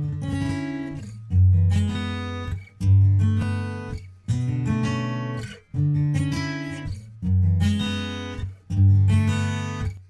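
Background music on acoustic guitar: strummed chords, a new one about every one and a half seconds, each left to ring and fade.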